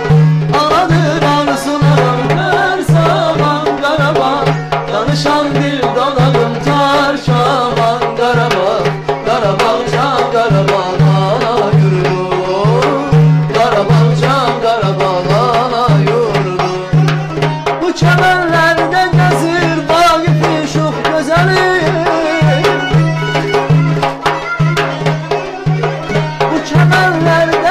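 Azerbaijani folk ensemble playing live: Turkish saz, kamancha and guitar over a frame drum's steady beat, with a man singing in places.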